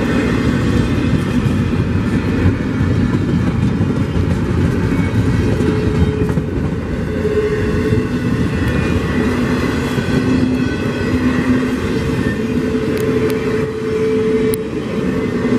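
Norfolk Southern intermodal freight train's well cars rolling past close by: a steady rumble of wheels on rail.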